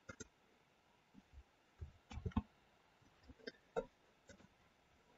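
Faint computer mouse clicks: a short click right at the start, a small cluster of two or three about two seconds in, and single ones near three and a half and four seconds, over quiet room tone.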